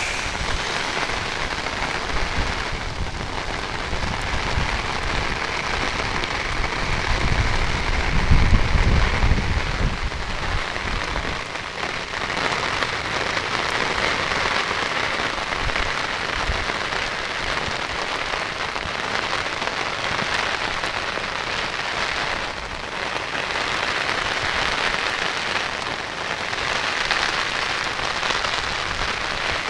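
Heavy rain falling steadily, an even hiss of rain on the ground and surfaces, with a louder low rumble that swells for a couple of seconds about eight seconds in.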